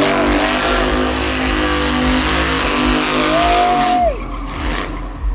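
A car doing a burnout: the engine is held at high revs while the spinning rear tyres screech with a loud, dense hiss. Near the end the engine revs up once more, then drops off sharply, and the tyre noise fades.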